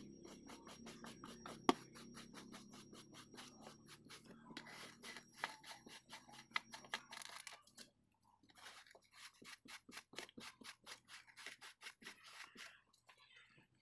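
A stiff hand brush scrubbing a car's floor carpet in rapid back-and-forth strokes, loosening dust and grit. There is one sharp click about two seconds in and a short pause near the middle, after which the strokes come more spaced out.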